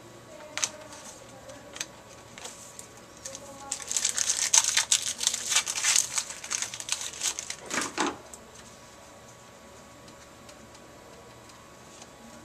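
A foil trading-card pack being torn open and its wrapper crinkled: a dense run of crackling that starts about four seconds in and lasts about four seconds, with a few single clicks before it.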